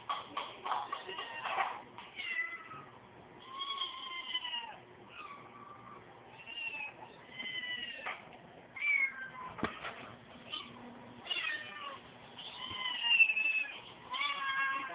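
Cat meowing over and over, a string of drawn-out meows that bend up and down in pitch, with a sharp knock about ten seconds in.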